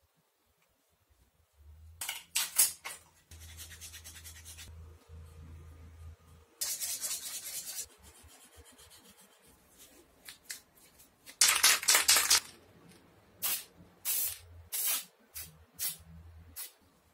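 Hand finishing of MDF pieces: rubbing and sanding strokes, then several short hissing bursts of spray paint, the loudest a little past the middle.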